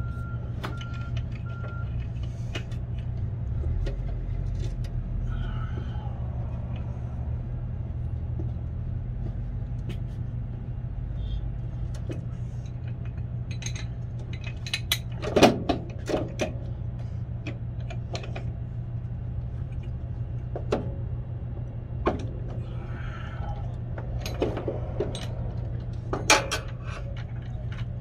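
Steady low hum with scattered small clicks and knocks, a louder clatter about halfway through and several more knocks near the end.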